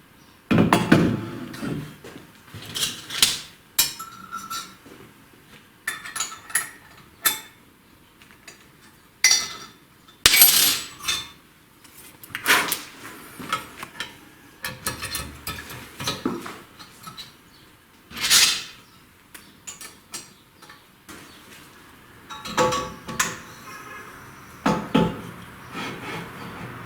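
Irregular metallic clinks and knocks of steel tools and parts being handled and set down on a workbench, a couple of sharp hits every second or two.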